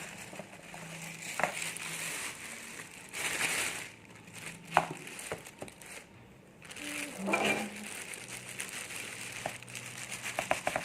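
Plastic packaging rustling and crinkling as a badminton racket is unwrapped, with scattered sharp clicks and taps.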